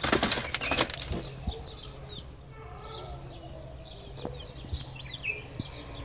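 A pigeon beating its wings inside a cardboard box, a quick flurry of flaps in about the first second. After that it settles, leaving only faint high chirps.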